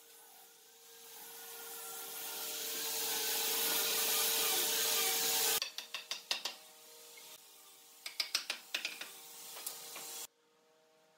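A hiss that grows louder for about five seconds and cuts off suddenly, then two clusters of quick sharp clicks and knocks as wooden boards are handled and fitted together.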